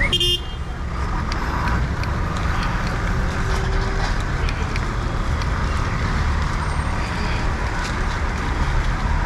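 City street traffic: a steady rumble of vehicles, with a short high-pitched sound at the very start.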